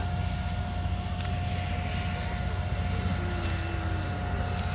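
Aero L-39 Albatros jet trainer's single turbofan running as it rolls along the runway: a steady low rumble with a thin, steady whine over it.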